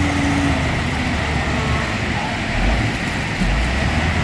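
Heavy diesel machinery running: a wheel loader's engine working as it pushes its bucket into a gravel pile, the low rumble swelling twice in the second half, over a steady high whine.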